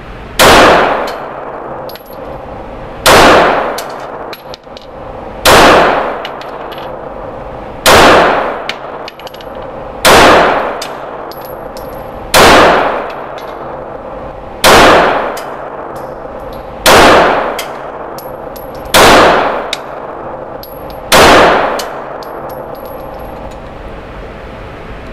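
Ten 9mm shots from a Glock 19 pistol fired one at a time, about one every two and a quarter seconds, each a sharp report with an echo tail off the walls of an indoor range.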